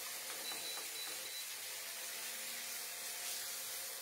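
Marinated chicken pieces sizzling in oil in a nonstick frying pan, a steady hiss, with a few light scrapes of a silicone spatula in the first second or so.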